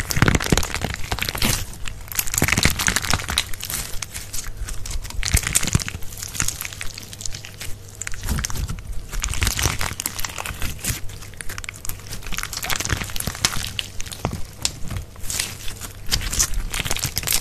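Clear slime packed with small plastic clothespins being squeezed and kneaded by hand: irregular wet crackling and popping with many sharp clicks, coming in uneven surges every few seconds.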